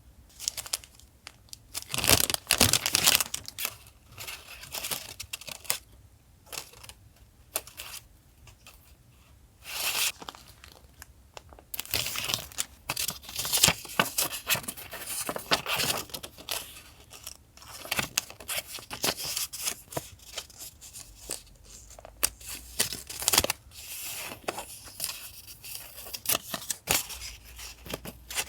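Paper being torn and crinkled by hand in irregular bursts, with quieter rustling of paper between.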